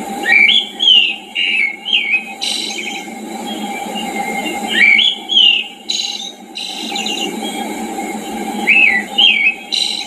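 Wild songbirds singing in a mountain forest: one bird repeats short whistled, swooping phrases, mostly in pairs, about a second in and again around five and nine seconds in. Brief buzzy trills come between the phrases, over a steady low background noise.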